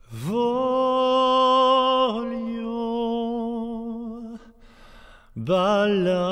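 A wordless solo voice sings long held notes, each sliding up into pitch from below with a slight waver. There is a breath-like pause of about a second before the second phrase, near the end.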